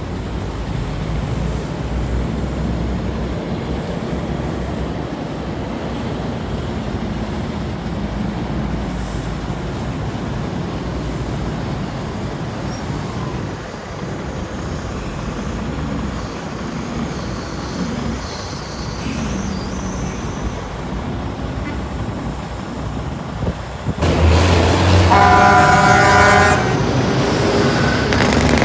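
Steady low rumble of heavy truck engines, growing louder near the end, where a semi truck's air horn blasts loudly for about two seconds.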